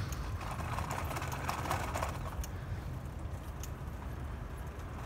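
Riding noise from a bicycle on cracked asphalt: a low rumble with scattered clicks and rattles, thickest in the first two seconds or so.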